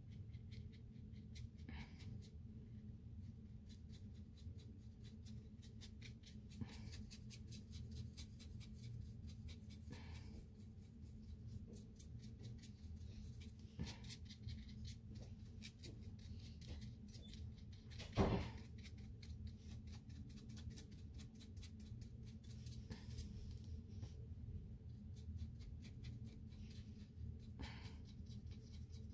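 Quiet steady low room hum with scattered faint clicks and taps from handling at the painting table, and one sharp knock a little past the middle.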